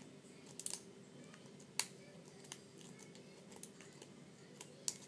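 Half-diamond lock pick and tension wrench working the pins of an Abus Inox padlock: a few scattered small metallic clicks, the sharpest about two seconds in.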